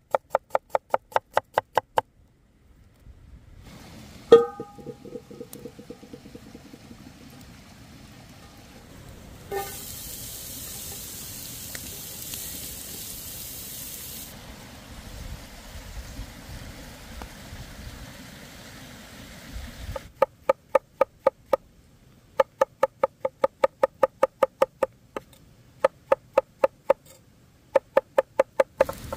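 A cleaver chops onion on a wooden board in rapid, even strokes. About four seconds in comes a single sharp metallic clank that rings briefly, then sliced onions sizzle in a cast iron skillet over a wood fire for a few seconds. From about two-thirds of the way in, the cleaver chops mushrooms on the board in bursts of quick strokes.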